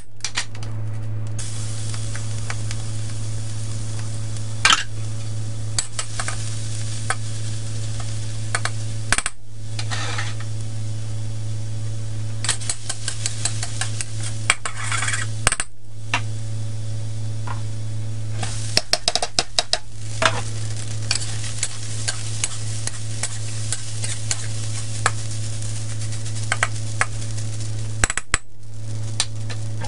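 Food sizzling in hot oil in a carbon steel wok, with a metal spatula scraping and clinking against the wok at irregular moments as it stirs. Cooked rice is being stirred in near the end. A steady low hum runs underneath.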